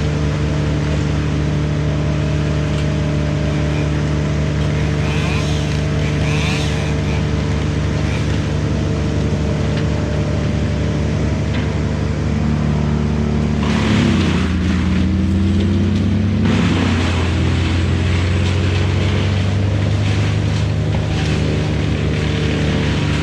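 Sany SY95 excavator's diesel engine running steadily. About thirteen seconds in, its note dips and wavers for a few seconds, then settles at a slightly different pitch.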